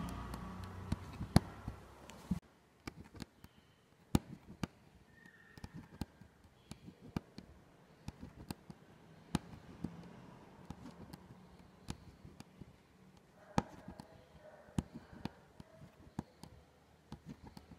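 Aari hook needle punching in and out of taut silk fabric while chain-stitching with gold zari thread: a string of small, sharp, irregular clicks, about two a second.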